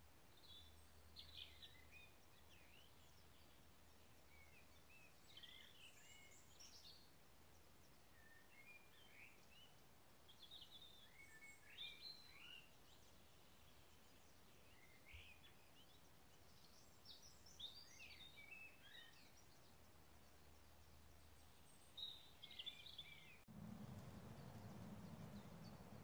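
Faint woodland birdsong: scattered short chirps and trills from songbirds in a conifer forest. Near the end the background changes abruptly to a louder, steady low rumble.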